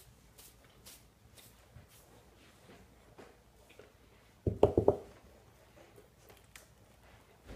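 A person chewing a mouthful of buttered toast, with faint wet mouth clicks. About halfway through comes one brief, loud, muffled burst of a few quick pulses.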